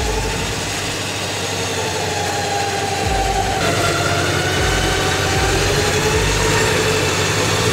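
Carbon Offroad electric winch whining steadily as it hauls the Y62 Nissan Patrol out of the mud, its whine wavering slightly in pitch, over the Patrol's V8 engine idling.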